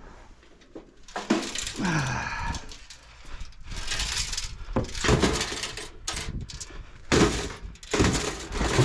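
Metal desktop computer cases being shifted and set down: several bursts of clattering, knocking and scraping, with a squealing scrape that falls in pitch about two seconds in.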